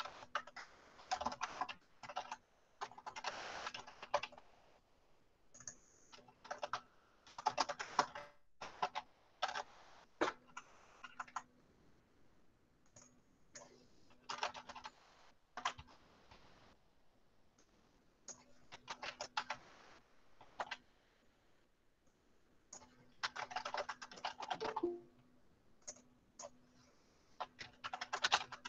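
Computer keyboard typing in short bursts of clicks, with pauses of one to two seconds between them.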